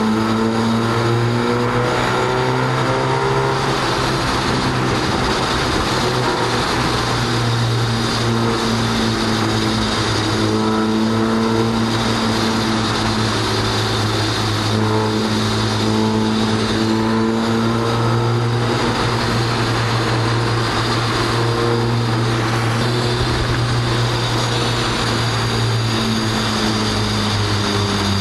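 Car engine and exhaust heard from inside the cabin, cruising at fairly steady revs through a road tunnel, the pitch rising and falling only slightly.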